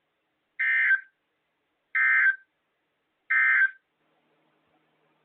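Emergency Alert System SAME end-of-message data code: three short, buzzy warbling data bursts about 1.4 s apart. They mark the end of a NOAA Weather Radio alert broadcast.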